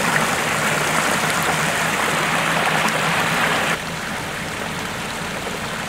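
Floodwater rushing in a steady wash. About four seconds in it gives way abruptly to a quieter flow of water spilling over a curb from a flooded yard, where a broken water pipe is adding to the rainwater.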